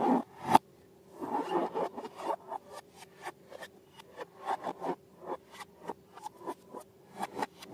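Sticky slime being kneaded and squeezed by hand, making irregular wet clicks and crackles. It is loud and busy at first, with a sharp snap about half a second in, then scattered clicks after a brief lull.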